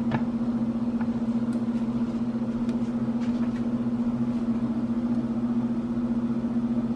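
Steady low electrical hum from a kitchen appliance motor or fan, even throughout, with a few faint ticks.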